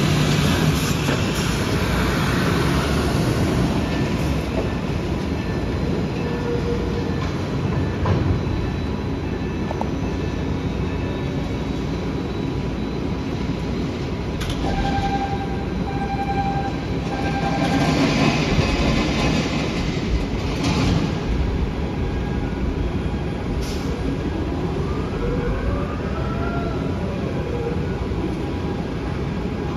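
Container gantry crane at work unloading a container ship: a steady mechanical rumble with clanking, three short warning beeps about midway, and a whine that rises and then falls near the end as the hoist moves.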